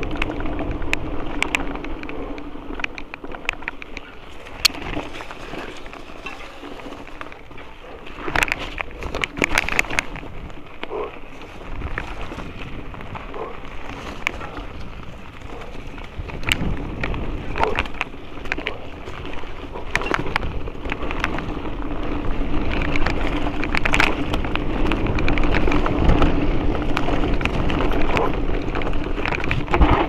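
Mountain bike ridden fast down a dirt and gravel forest trail: the tyres crunch over the ground, with frequent sharp clicks and rattles from the bike over bumps and a low rumble of wind on the rider's camera. A steady buzz runs under it.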